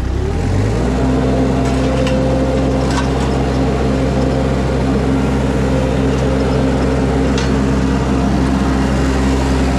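Mini skid steer's engine revving up about half a second in and held at high speed under load as it pulls a shrub out of the ground with a chain.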